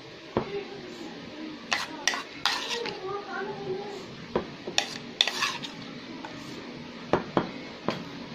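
A metal spoon clinking and scraping against a bowl and a tart pan as cooked apple pieces are spooned into the dough-lined pan. There are about a dozen sharp, irregular clinks.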